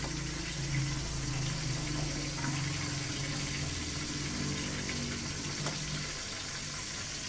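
A pot of soup simmering on the stove while a ladle stirs through the broth: a steady watery hiss with a low hum under it that fades about six seconds in, and a couple of faint taps.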